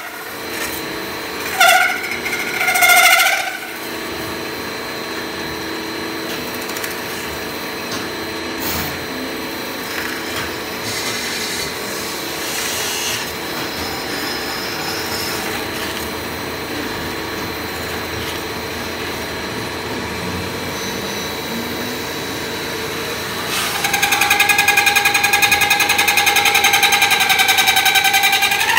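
CNC metal-spinning machine running, its roller forming a spinning metal workpiece, with a steady mechanical noise. Short wavering squeals come in the first few seconds, and near the end a loud, steady, high squeal sets in and holds.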